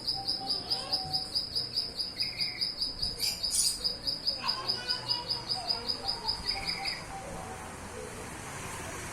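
White-rumped shama (murai batu) singing: short whistles and chirps over a rapid, evenly pulsing high note, about five or six pulses a second, that stops about seven seconds in.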